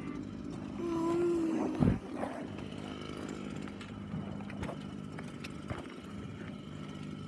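A small engine running steadily, with a louder held tone about a second in that falls away sharply just before two seconds.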